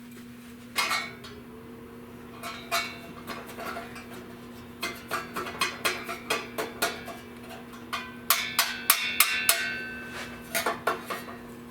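Hammer tapping on a steel sheet-metal patch piece: a series of sharp metallic strikes, scattered at first and then a quick, louder flurry late on, with the metal ringing briefly after some blows. A steady low hum runs underneath.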